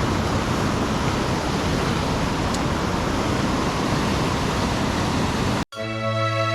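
Steady, loud rush of water pouring through a flooded spillway. It cuts off abruptly near the end, and gentle background music begins.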